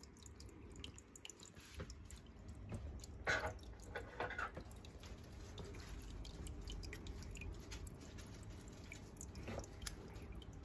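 Water dripping and trickling from an aquaponics grow tray into the aquarium beneath it. A few clearer drips fall about three, four and nine and a half seconds in, over a low steady hum.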